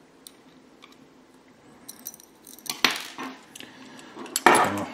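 Light metallic clicks and taps of a small screwdriver tip picking at a tiny screw on a tabletop. A few louder knocks and handling rustles come in the second half.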